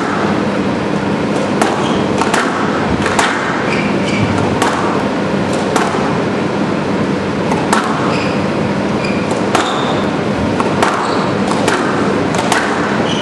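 Squash rally: the ball cracks sharply off rackets and walls about once a second, at an irregular pace, with short squeaks of court shoes on the wooden floor, over a steady background hum.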